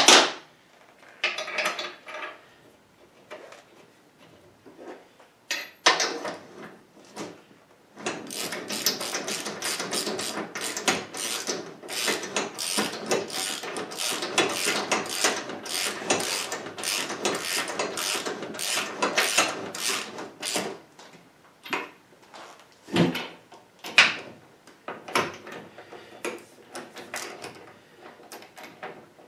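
Ratchet wrench clicking rapidly for about twelve seconds as bolts are run down into a cast housing on a steel lathe cabinet top, with sharp metal clinks of tools and bolts set down before and after.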